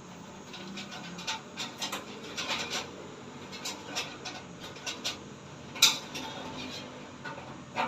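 Scattered light clicks and taps from hardware being handled, with one sharper click about six seconds in.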